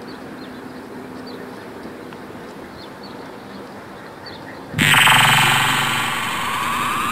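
Outdoor ambience with faint bird chirps, then about five seconds in a loud electronic power-up sound effect cuts in suddenly: a buzzing rising whine over high steady tones, marking the energy spark being activated.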